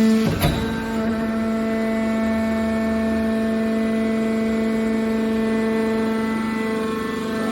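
Hydraulic scrap-metal baler running with a steady pitched hum, and a single sharp knock about half a second in.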